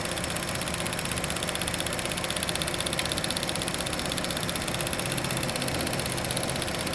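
GM Ecotec 1.4L turbo engine idling with a rapid, steady ticking from its EVAP canister purge solenoid valve, louder than normal because the solenoid is failing. A single faint click about three seconds in.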